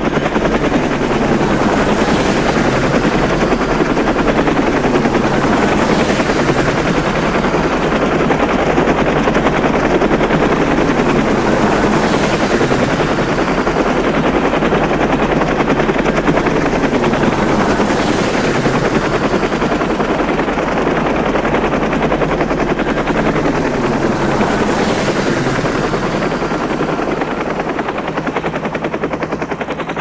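Helicopter rotor chopping steadily, with a whooshing swell that repeats about every six seconds.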